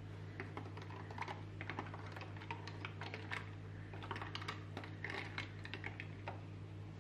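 Ice cubes clicking and clinking against a drinking glass as a wooden spoon stirs an iced drink, a quick irregular run of light clicks.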